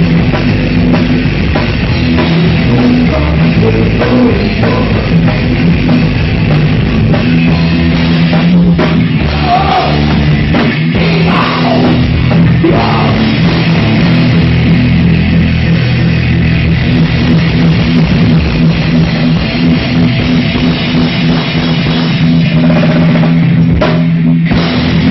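Rock band playing loud, with electric guitar, bass and drum kit, and a few brief breaks in the playing.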